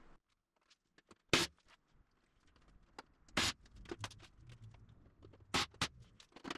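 Pneumatic rivet gun firing in short bursts a couple of seconds apart, two in quick succession near the end, setting 3/32-inch flush rivets in aluminum fuselage skin. Light clicks and taps of handling between the bursts.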